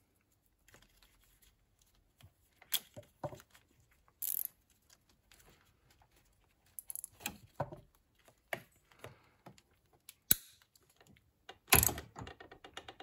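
Plastic cable ties being fastened around wiring: scattered small clicks and rustles of handling, a brief high rasp about four seconds in, a sharp click near ten seconds and a louder cluster of clicks near the end.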